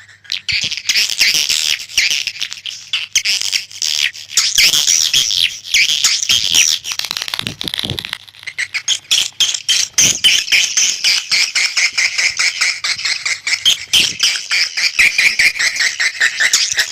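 Swiftlet call track used to lure edible-nest swiftlets into a bird house. Dense, continuous high-pitched twittering from many swiftlets, shot through with rapid ticking clicks.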